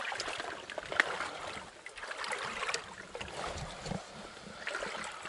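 Shallow river water sloshing and splashing around people wading beside an inflatable boat, with scattered light clicks and knocks.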